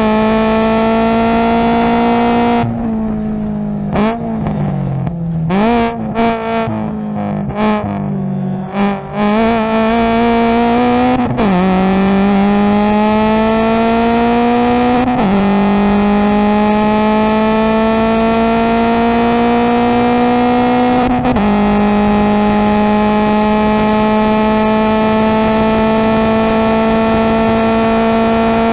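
Subaru BRZ's 2.0-litre flat-four race engine, with aftermarket header and single catback exhaust, heard from inside the cabin at race pace. Early on it lifts off for braking, with several quick throttle blips on the downshifts. It then accelerates at full throttle through the gears: three upshifts, each a sudden drop in pitch followed by a steady climb.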